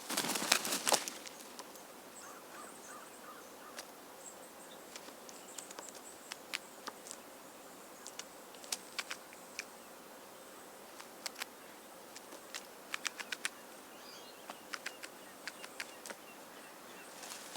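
Small birds: a brief noisy flutter in the first second, then scattered sharp clicks and faint, short high-pitched chirps.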